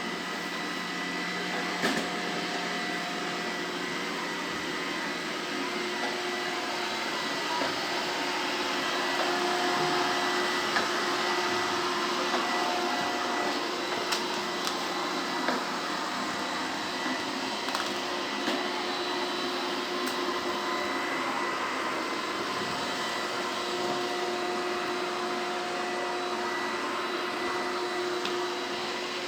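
Robot vacuum cleaner running steadily, a continuous motor hum with a few short clicks.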